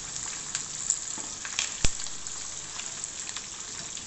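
Chicken drumsticks deep-frying in hot oil in a kadhai: a steady sizzle full of small crackles and pops as the pieces are turned over with a wire strainer. A single sharp click about two seconds in stands out above the sizzle.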